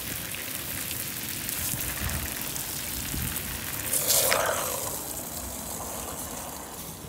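Water jetting from a high-pressure hose tip into and around a tiled patio floor drain, a steady hissing spray with a louder splashing rush about four seconds in. The drain is being flooded to mimic rain and check it for leaks.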